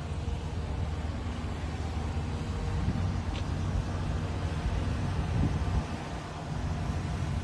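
Steady low rumble of a vehicle engine running close by.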